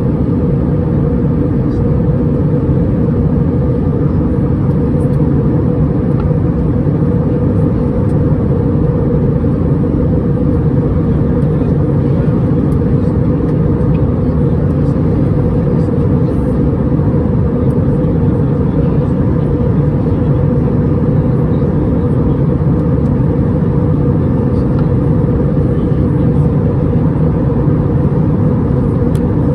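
Steady cabin rumble inside an Airbus A320-231 airliner: engine and airflow noise heard from a passenger seat, with a faint steady hum running through it.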